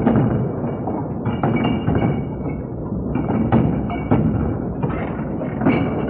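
Glass milk bottles clattering and clinking in a series of sharp knocks, with faint ringing. Heavy hiss and crackle from an old 16mm optical film soundtrack lie under it.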